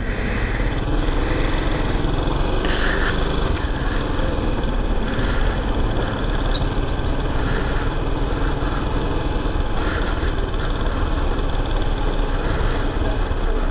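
Small Chinese motorcycle's engine running at low revs while the bike creeps along in slow traffic, a steady engine note under low rumble from road and air on the helmet microphone.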